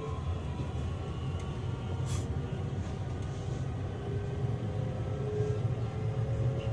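Running sound inside a JR West 227 series electric train's motor car: a steady low rumble of wheels on rail with faint steady tones from the Toshiba IGBT inverter-driven traction motors, and a brief click about two seconds in.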